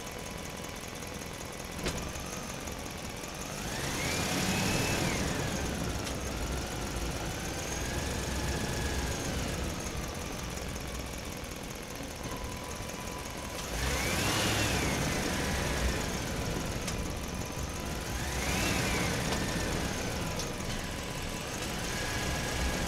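Motors of a Huina RC excavator whining up and down in pitch as the arm and turntable move, three times over a steady background hum. A single click comes about two seconds in.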